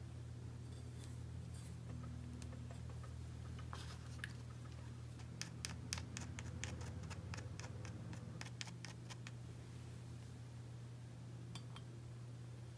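A run of quick, light clicks, about four or five a second for some four seconds from about five seconds in: a small hand ratchet turning exhaust studs down into an aluminium ATV cylinder head. A faint, steady low hum runs underneath.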